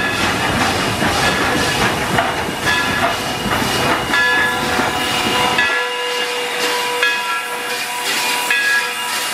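CNJ B-7 class 0-6-0 steam switcher #113 running light past close by: low rumble and clatter of its running gear with steam hissing in repeated puffs. About two-thirds of the way in the rumble cuts off suddenly, leaving steam hissing with faint steady whistling tones.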